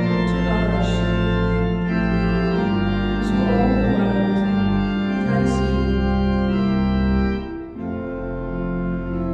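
Church organ playing slow, sustained chords that change every couple of seconds, with a brief drop in level near the end. This is the closing voluntary after the blessing.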